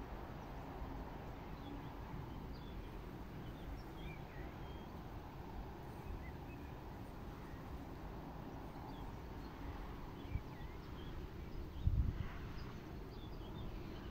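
Open-country ambience: steady low wind noise with scattered short bird chirps, and a brief low bump near the end.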